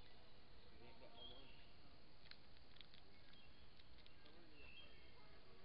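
Faint outdoor background with distant voices, a few short high chirps and a couple of light clicks about two seconds in.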